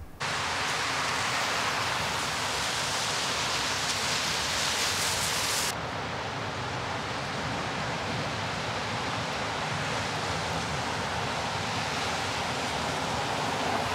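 Steady rain falling, an even hiss. About six seconds in it turns duller as the highest part of the hiss drops away.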